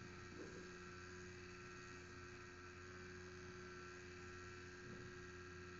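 Near silence: a steady low electrical hum.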